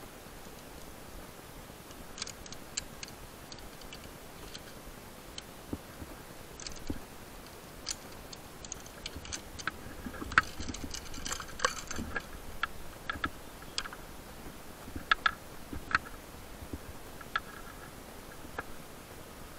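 Scattered light clicks and taps, irregular and busiest in the middle, with a few short high chirps among them, over a faint steady hiss.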